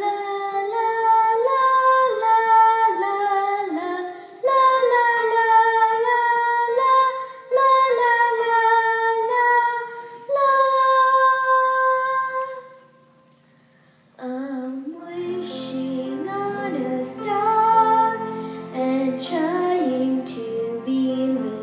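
A young girl singing alone, slowly, with long held notes. After a short pause about two-thirds of the way through, piano and band come in with chords and cymbal strokes.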